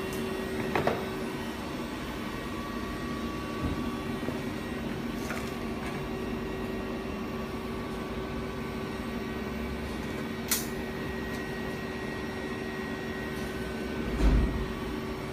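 A steady machine hum with a few faint ticks, a sharp click partway through and a short low thump near the end.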